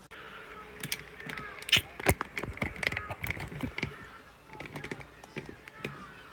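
Handling noise from a phone camera being gripped and turned around: a run of knocks and rubbing clicks, the loudest about two seconds in.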